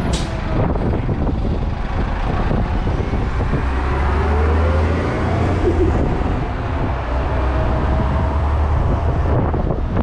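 Road traffic going past: a steady rush of cars, with a low engine rumble that grows strongest from about four to seven seconds in.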